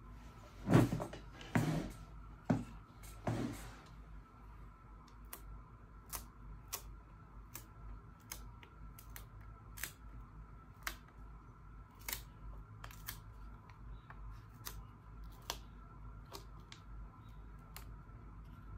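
Hands handling packaging and small hard items: a few rustling knocks in the first four seconds, then irregular light clicks and taps, one or two a second.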